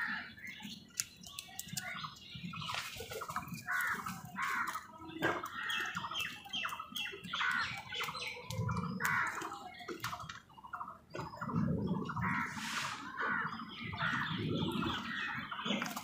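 House crows calling: a busy, continuous run of short, harsh squawking calls, repeated several times a second, with scattered sharp clicks.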